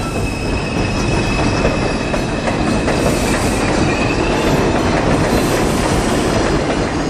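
Subway train running along the track: a steady rumble and rattle with faint high whining tones.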